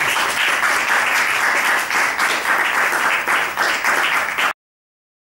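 Audience applauding, many hands clapping in a dense, steady patter. It cuts off abruptly about four and a half seconds in.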